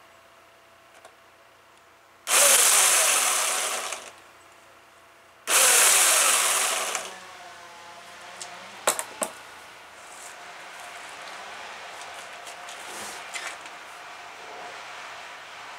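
Homelite electric chainsaw run in two short bursts of about a second and a half each, the motor and chain coming up to speed suddenly and winding down in pitch when the trigger is let go. A few sharp clicks follow about nine seconds in.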